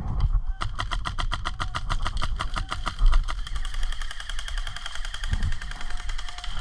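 HPA-powered airsoft rifle firing on full auto in one long continuous burst of about a dozen shots a second, starting just under a second in.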